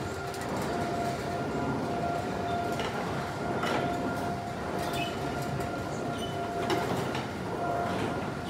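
Carousel turning: its machinery rumbles steadily under a constant high whine that drops out now and then, with a few sharp clacks and knocks.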